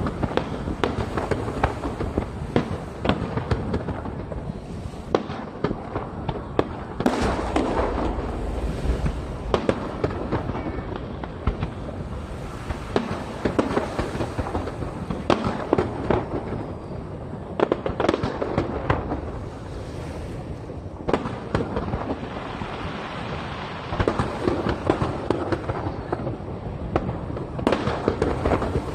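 Aerial fireworks display: shells bursting in a dense, unbroken run of sharp bangs over a continuous rumble.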